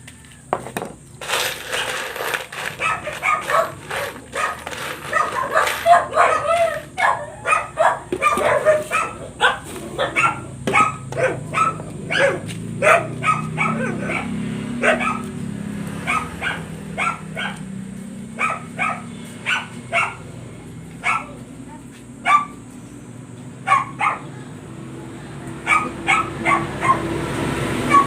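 A dog barking over and over, in quick runs of barks at first and then in scattered single barks, over a low steady rumble.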